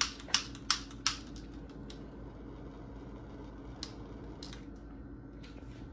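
A long utility lighter clicking to light a birthday candle: four sharp clicks in the first second, about three a second, then a few fainter ticks, over a low room hum.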